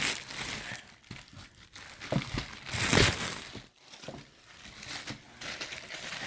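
Packaging crinkling and rustling in irregular bursts as it is handled and opened, the loudest burst about halfway through.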